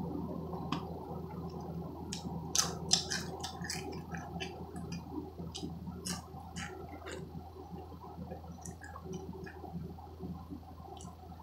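A person chewing potato chips close up, with scattered sharp crunches over a steady low hum.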